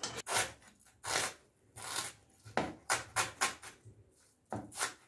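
Kitchen knife chopping shredded cabbage, then red onion, on a wooden cutting board: sharp knocks of the blade against the board in short runs of quick strokes, about four or five a second.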